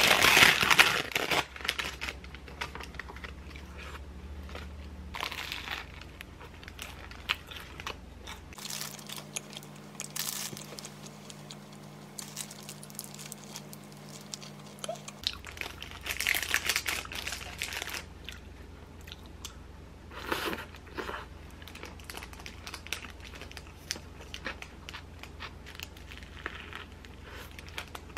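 Paper sandwich wrapper crinkling and tearing, loudest in the first second or so as a Subway sandwich is unwrapped. Then more paper rustling, with bites and chewing of the sandwich.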